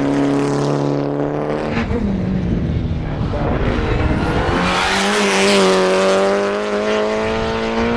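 Race car engines running hard on a circuit, their pitch shifting as they change speed. Around the middle a car comes close with a rising rush of noise, then its engine holds a steady, higher note.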